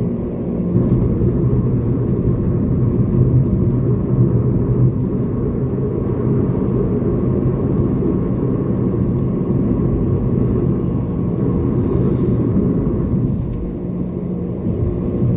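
Toyota Corolla driving along with a steady low rumble of engine and road noise.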